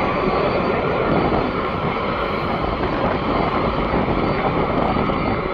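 Steady, even roar of aircraft engines, with no change in loudness or pitch.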